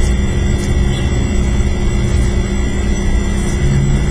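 Steady low rumble of background noise with a constant hum, plus a couple of faint keyboard clicks near the start as code is typed.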